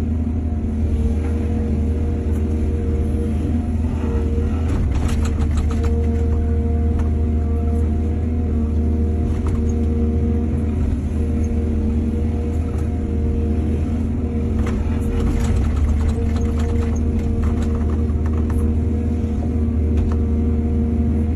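Excavator's diesel engine running steadily with a deep drone, with several stretches of rattling and knocking from the machine at work.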